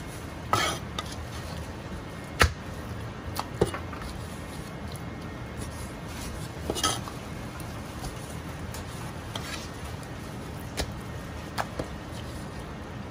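Chinese cleaver cutting raw chicken thigh on a plastic chopping board: about ten irregular knocks of the blade meeting the board, the sharpest about two and a half seconds in, over a steady low background noise.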